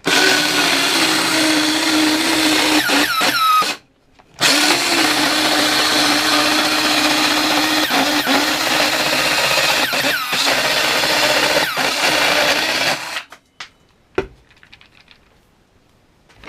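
Parkside PHKSA 12 A1 12 V cordless mini circular saw running and cutting, in two long runs with a brief stop about four seconds in. It cuts off about thirteen seconds in, and a few small knocks follow. The saw struggles a bit on a battery whose indicator goes red under use.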